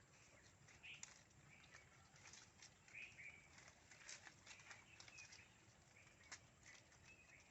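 Faint goat-shed sounds: scattered sharp hoof taps and knocks, with short high-pitched calls now and then.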